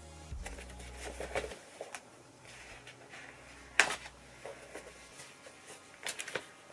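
Handling a spiral-bound scrapbook: pages turning and rustling, with a sharper knock just under four seconds in.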